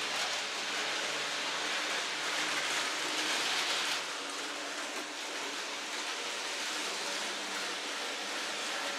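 N-scale model trains running on the layout's track: a steady hiss of small wheels on rail with a faint low motor hum. It drops a little about four seconds in.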